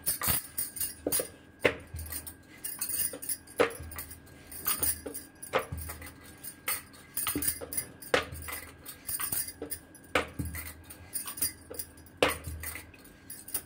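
Wooden rolling pin working paratha dough on a bamboo board in back-and-forth strokes, with sharp knocks of the pin on the board and the clinking of bangles on the wrists.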